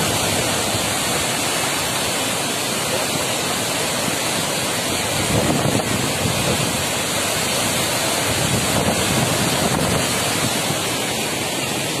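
Heavy water discharge pouring through a dam's open spillway gates and churning below them: a steady rushing noise with no breaks.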